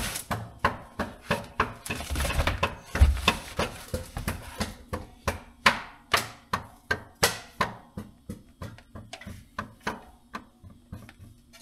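Piston being tapped down through a ring compressor into a cylinder of a Case IH Magnum 7250's Cummins six-cylinder diesel: a long run of sharp taps, about two a second, growing a little lighter toward the end.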